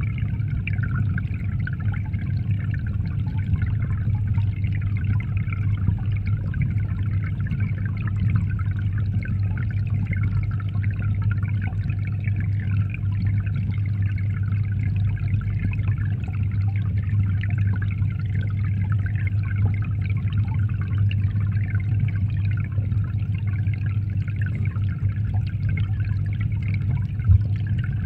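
Steady rushing and bubbling of aquarium water heard underwater, over a constant low hum. There is one brief thump near the end.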